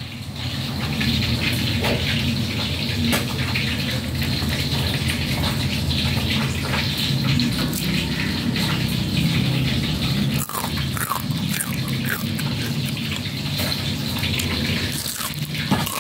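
A steady rushing background noise with scattered small crackles and clicks, the crackles from a crispy fried corn fritter being torn apart by hand.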